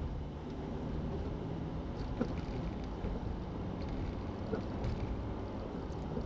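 Car driving at highway speed: steady low road and engine rumble, with two faint ticks about two and four and a half seconds in.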